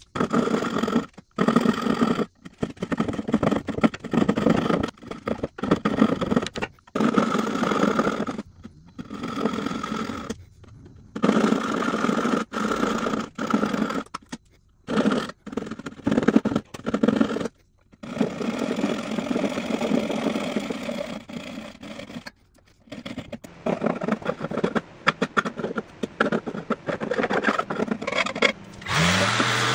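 Coping saw cutting the profile of a crown molding in runs of fast strokes, broken by short pauses. Near the end a power tool's motor starts and spins up to a steady speed.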